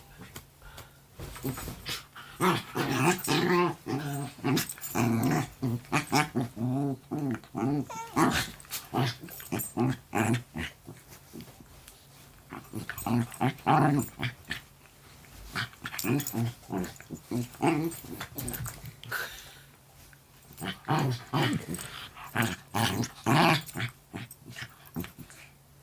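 Poodle-mix dogs play-fighting, with growling in short, irregular bursts and brief pauses between.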